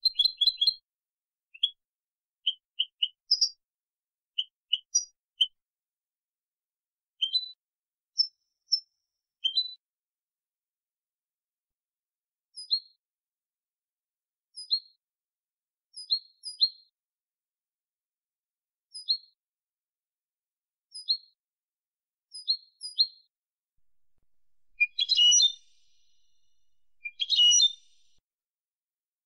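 European goldfinch singing: short, separate high chirping notes spaced through the passage, then two fuller, denser song phrases near the end.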